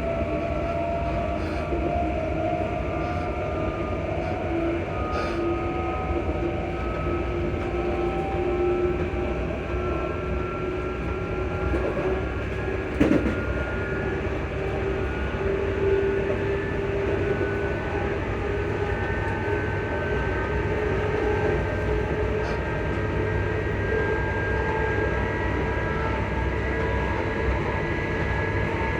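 ScotRail Class 334 electric multiple unit's traction motors whining under way, several tones rising slowly and steadily in pitch as the train gathers speed, over a steady rumble from the running gear; a single knock about 13 seconds in.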